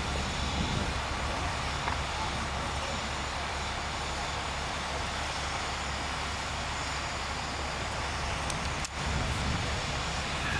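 Steady low rumble of running vehicle engines under a wide outdoor hiss, briefly cutting out about nine seconds in.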